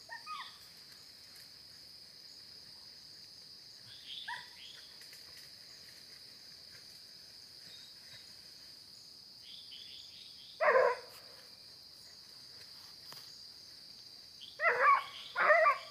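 Steady high-pitched chorus of night insects. It is broken by one loud short cry about two-thirds of the way through and a quick run of three more near the end.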